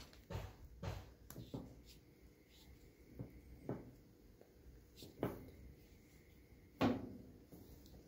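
Scattered faint clicks, creaks and knocks of hand handling as the scored rubber jacket of a thick 1/0 cable is twisted and worked loose from the copper conductor.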